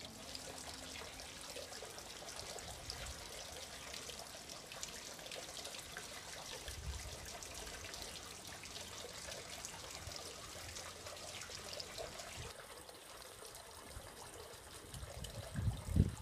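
Hot-spring water trickling and splashing steadily into a foot bath pool, with a few low thumps near the end.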